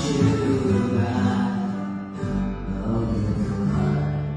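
Live acoustic ensemble of guitars, piano and cello playing an instrumental passage, with a low sustained note coming in about halfway through.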